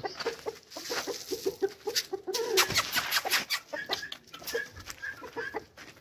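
Chickens clucking in short, repeated calls as they gather at scattered millet, with a run of quick clicks about two to three seconds in and a few higher, shorter calls near the end.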